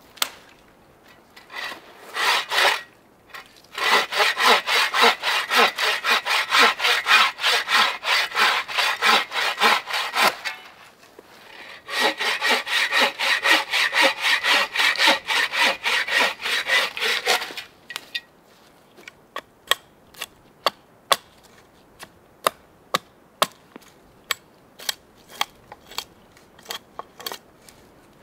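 Bow saw cutting through a dead tree limb in two long runs of rapid strokes, followed by a string of sharp knocks about one a second.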